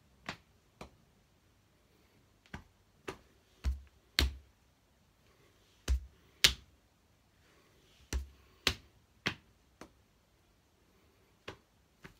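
Hands patting knees and chest, a steady run of sharp taps and light slaps, mostly in pairs about half a second apart.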